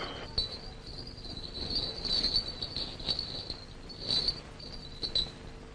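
Insects chirring in a steady high-pitched drone that swells and fades, with a few soft knocks.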